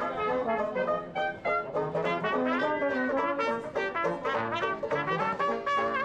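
A small street band of trumpet, trombone and banjo playing a jazz tune, with the trumpet and trombone carrying the melody.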